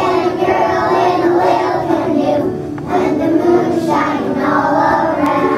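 A group of kindergarten children singing a song together in unison, with a short dip between phrases about two and a half seconds in.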